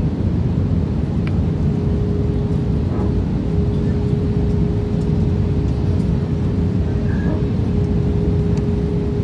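Airbus A320 cabin noise on the descent to landing: a steady roar of engines and airflow heard from a window seat, with a steady hum tone running through it.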